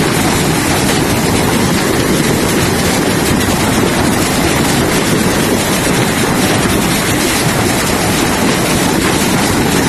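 Fast-flowing floodwater rushing past: a loud, steady rush of churning water with no let-up.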